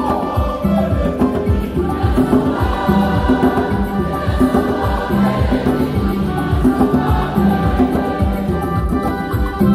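Electronic keyboard playing a lively church hymn with a steady drum-machine beat and bass, and a congregation singing along.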